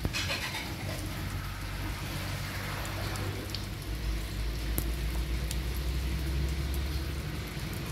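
Steady rain pattering on a sheet of shallow floodwater over dirt ground, with scattered distinct drop ticks. A low rumble joins in from about four to seven seconds in.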